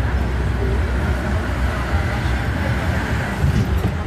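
Steady low rumble of engine and road noise from a tourist road train, heard while riding on it.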